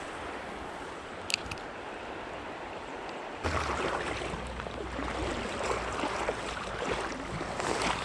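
Creek water rushing over a shallow riffle, a steady hiss. There is a sharp click about a second in. At about three and a half seconds the water suddenly grows louder and closer, with a low rumble underneath.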